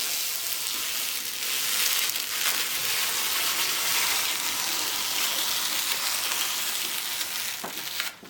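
Protective plastic film being peeled off a PC case panel: a steady crackling hiss that stops about eight seconds in.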